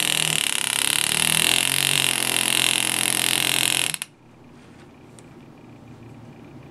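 Air graver handpiece running: a loud hiss of compressed air with a rapid buzz whose pitch shifts up and down. It stops suddenly about four seconds in.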